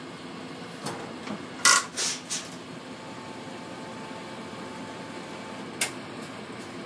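Inside a city bus, the engine idling steadily while the doors close: a few knocks and a loud thud about a second and a half in, and a short click near the end.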